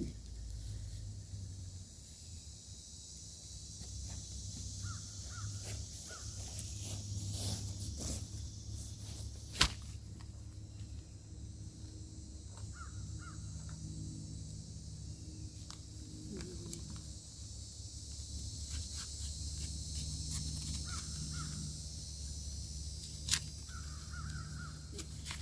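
Birds calling briefly about four times, over a steady low hum and high hiss. Two sharp clicks come about ten seconds in and near the end.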